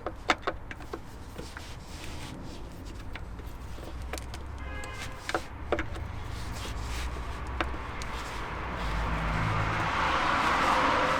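Light clicks and knocks of a plastic oil drain plug being threaded in by hand, with a brief squeak about halfway through. Toward the end a broad rushing noise swells up, like a passing vehicle.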